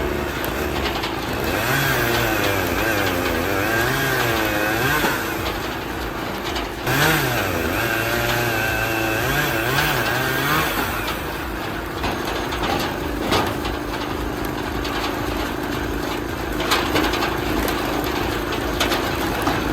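Engine-driven log splitter running. Its pitch wavers up and down for about the first ten seconds as the load comes and goes, then holds steadier, with a few sharp knocks.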